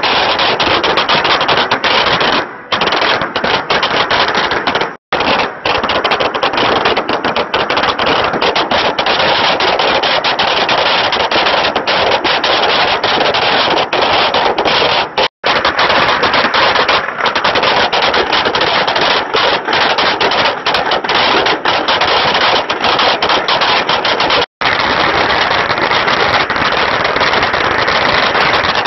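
Long strings of firecrackers going off in a continuous, rapid crackle of bangs, broken by a few momentary gaps where the sound drops away.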